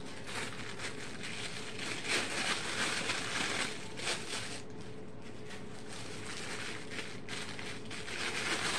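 Thin translucent disposable gloves rustling and crinkling in irregular bursts as they are pulled onto the hands.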